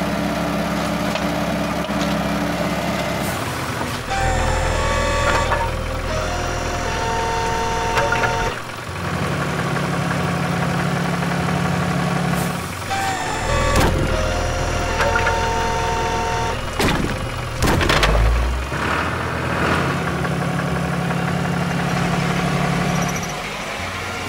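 Heavy-machinery sound effect: an excavator's engine running, with steady whining tones and a few clunks, in a pattern that seems to repeat about every nine seconds.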